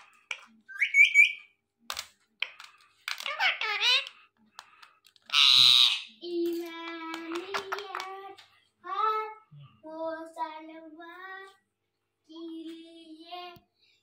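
Indian ringneck parakeets chirping and chattering, with one loud harsh squawk about five and a half seconds in, followed by a run of short voice-like calls that sound like talking mimicry. A few light clicks are mixed in early on.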